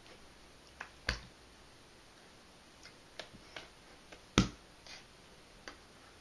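Hands striking together in quick gestures: two sharp slaps, one about a second in and a louder one past four seconds, with a few faint taps and clicks between them over quiet room tone.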